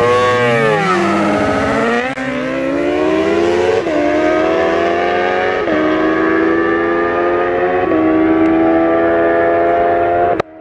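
Two sportbikes launching off the line in a drag race and accelerating hard, engines revving up through the gears. The engine note climbs, then drops sharply at each upshift, four times, before cutting off abruptly near the end.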